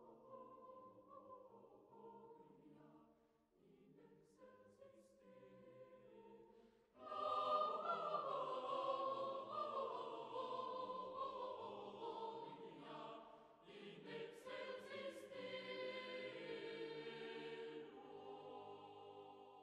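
Choir singing long, held chords, soft at first, then much fuller and louder from about seven seconds in, easing off near the end.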